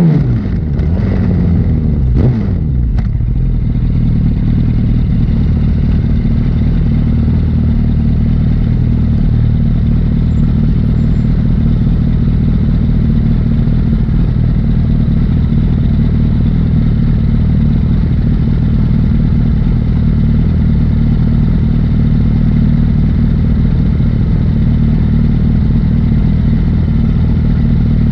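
Liter-class sportbike engine dropping in pitch over the first few seconds as the bike slows, with a couple of short sharp sounds, then settling to a steady idle.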